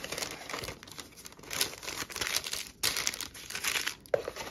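Packaging crinkling and rustling in irregular bursts as it is handled.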